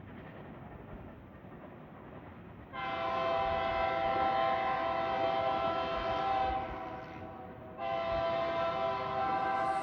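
Union Pacific freight locomotive's air horn sounding two long blasts, each a chord of several steady tones. The first starts about three seconds in and the second about eight seconds in, over the rumble of the approaching train.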